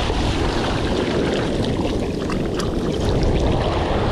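Shallow wave wash rushing and swirling around bare feet at the water's edge, its foam fizzing with fine crackles in the middle, over a steady low rumble of wind on the microphone.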